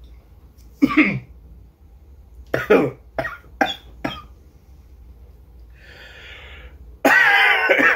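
A man coughing: one cough about a second in, a quick run of four short coughs around three to four seconds, a soft breathy exhale, then a longer, louder hacking cough near the end. The coughing is set off by the hot Jay's Peach Ghost Scorpion pepper powder coating the cereal he is eating.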